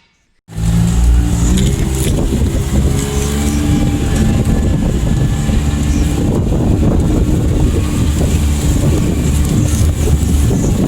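A motor vehicle driving, with its engine running steadily under heavy low road and wind rumble; it cuts in sharply about half a second in.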